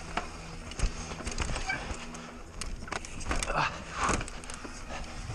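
Enduro mountain bike clattering over rough ground on a fast descent, with many sharp knocks and rattles. A short voice-like shout or cry comes about three and a half seconds in.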